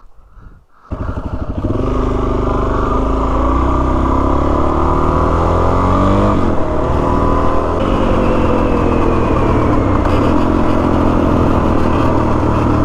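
Dual sport motorcycle engine running at a steady riding speed, with wind noise over it; it comes in suddenly about a second in.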